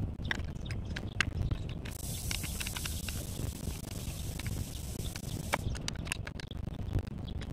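Hands working a PVC saddle clamp and its fittings on a buried water main: scattered small clicks and knocks of plastic and metal over a low steady rumble. A hiss starts abruptly about two seconds in and stops about five and a half seconds in.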